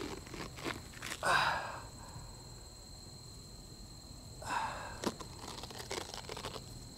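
A man breathing hard: two loud, rasping breaths about a second in and about four and a half seconds in, with small clicks and rustles between them.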